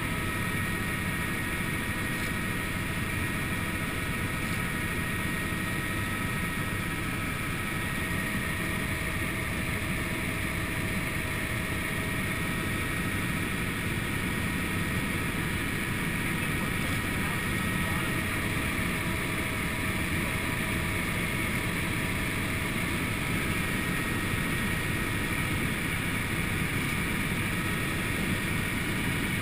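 Helicopter cabin noise in level flight: a steady engine and rotor noise with a thin, high, steady whine on top.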